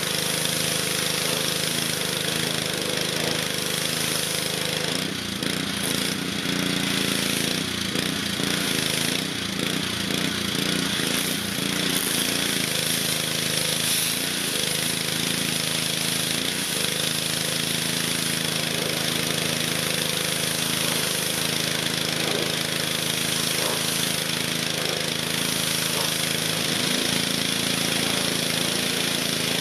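Honda-engined gas pressure washer running steadily, its small engine humming under the hiss of the high-pressure water jet striking a window air conditioner unit.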